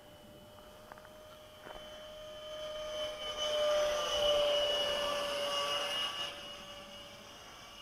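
Electric ducted fan of a 64 mm EDF RC jet whining in flight. The sound swells into a rushing pass, loudest about four seconds in, then fades back to a steady distant whine.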